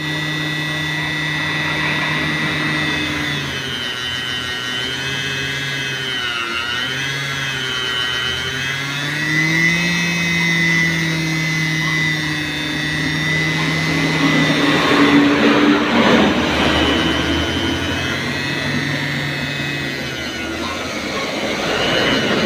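Small electric motor of a homemade Tamiya tire trimmer spinning a tire while a cutter trims it. It is a steady whine whose pitch drops and rises several times as the load on it changes, and it turns rougher and noisier for a couple of seconds about two-thirds of the way through.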